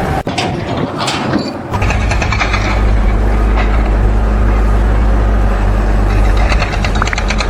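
A large engine running with a steady low rumble, settling in about two seconds in after a brief stretch of mixed noise.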